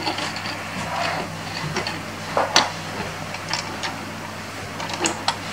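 Plastic LEGO bricks clicking and knocking against each other and the tabletop as they are handled: scattered light clicks, several in quick pairs, with a small cluster near the end.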